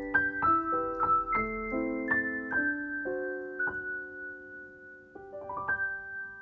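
Background piano music: a gentle melody of struck notes that ring on, pausing about four seconds in before a quick rising run of notes.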